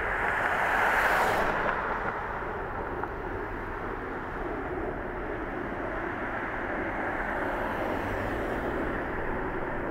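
City street traffic: cars driving past across an intersection, one passing close and loudest about a second in, then a steady rush of tyre and engine noise.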